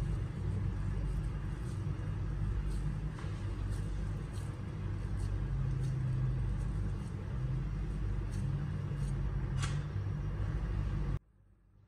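Steady low rumble with a few faint soft squishes as hands press minced beef onto a wooden skewer. The rumble cuts off suddenly near the end.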